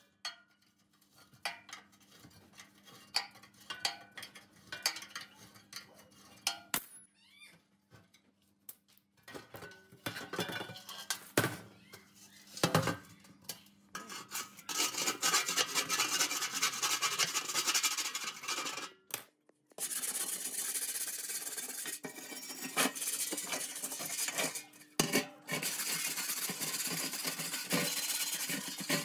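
Hand tools working on a rusty steel fan housing: scattered metallic clinks and knocks as the motor is unbolted with a wrench, then, from about halfway through, long continuous strokes of a scraper grinding rust and caked grime off the steel drum, broken by one short pause.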